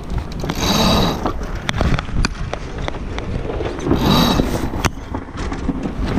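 Deck hardware and lines in a sailboat's cockpit clicking and knocking, with two louder bursts of rattling, rushing noise about a second in and again about four seconds in.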